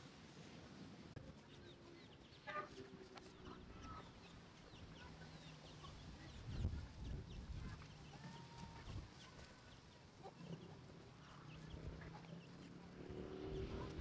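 Chickens clucking softly in the yard, with a soft low thump about halfway through.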